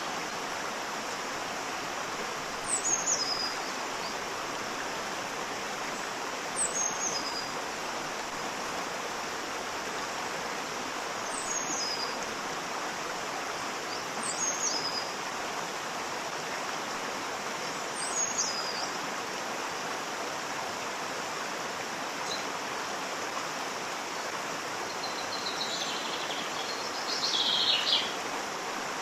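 Steady rush of a waterfall. Over it, a bird repeats a short high call that drops in pitch five times, a few seconds apart, and then gives a louder burst of chirps near the end.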